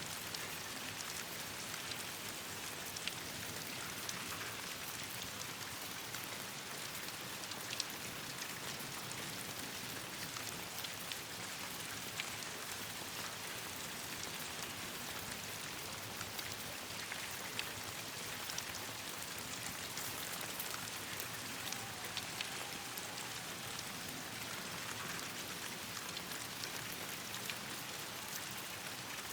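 Steady rain falling on leaves and ground: an even hiss dotted with many small sharp ticks of individual drops.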